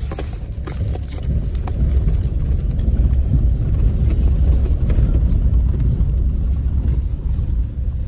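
Wind buffeting the microphone: a loud, uneven low rumble with no other clear sound over it.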